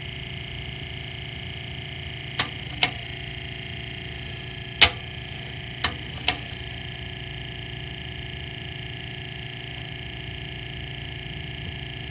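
Sony TC-K65 cassette deck's BSL capstan motor running with a steady, loud drone from bad bearings. Five sharp clicks come in the first half as the transport buttons are pressed and the mechanism engages, the loudest about five seconds in.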